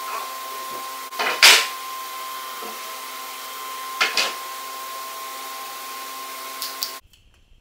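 A steady machine hum with a constant tone, broken by a loud wooden knock about one and a half seconds in and another about four seconds in as boards are handled on a workbench. A few light clicks follow, and all of it cuts off suddenly near the end.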